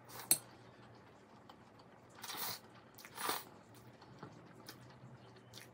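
Cold spicy noodles (bibimmyeon) being slurped up from chopsticks with a wet, hissing suck, twice: once about two seconds in and again about a second later, with chewing between. A short sharp click comes near the start.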